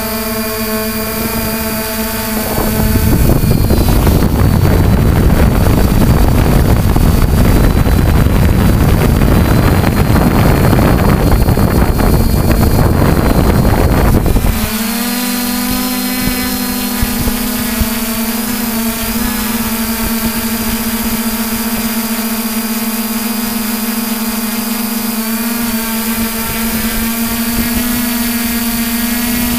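3DR IRIS+ quadcopter's electric motors and propellers whining steadily, several pitches shifting up and down together. From about three seconds in, a louder rushing noise drowns the whine out. It cuts off about fourteen seconds in and the motor whine returns.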